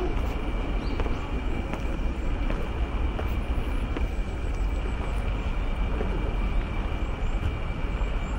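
Steady low rumble of outdoor city background, with faint footsteps on sandy ground about every three-quarters of a second.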